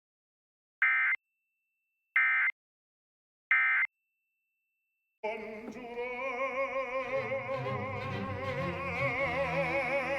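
Three short, identical bursts of Emergency Alert System SAME digital data, buzzy warbling tones about a second apart with silence between: the end-of-message code that closes a Required Weekly Test. About five seconds in, the television programme cuts back in with operatic singing over an orchestra.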